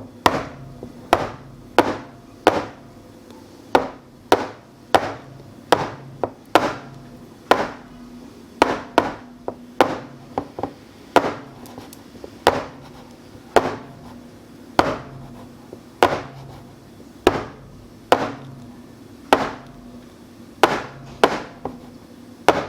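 A loaf pan of pumpkin bread batter being knocked down again and again to drive out air bubbles: a long run of sharp knocks at about one and a half a second, unevenly spaced.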